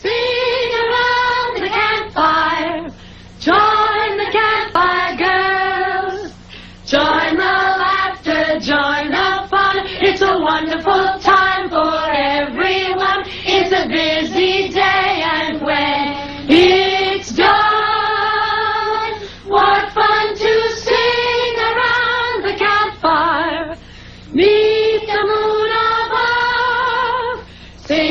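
A choir of high voices singing a melody together in long held notes, phrase by phrase with short pauses for breath, over a faint steady low hum.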